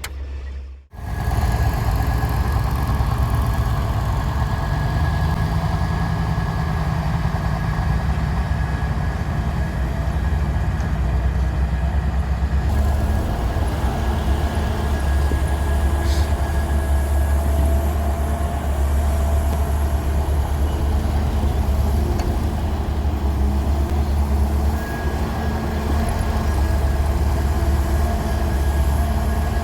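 Heavy diesel engine of earthmoving machinery running steadily with a deep low rumble, starting after a short break about a second in.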